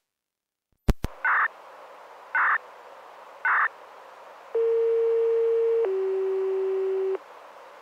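Municipal disaster-prevention radio broadcast heard over a handheld scanner (Alinco DJ-X81). The receiver's squelch opens with a click into steady hiss, then come three short beeps about a second apart and two long tones, the second lower than the first: the signal tones that open the broadcast before the chime.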